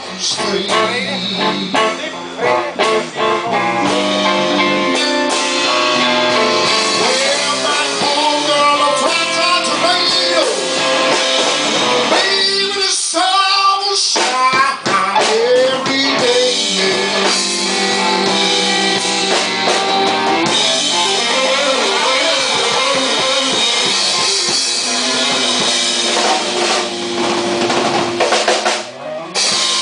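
Live blues band playing an instrumental passage of a slow blues: lead electric guitar with bent notes over a drum kit.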